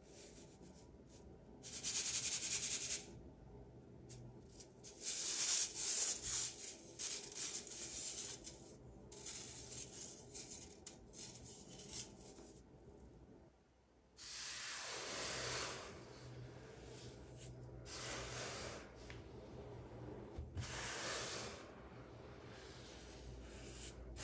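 Powdered baking soda shaken through a metal mesh sieve onto a heap: a soft hissing rustle that comes in bursts with each shake of the sieve. Near the end, hands rub and press through the powder.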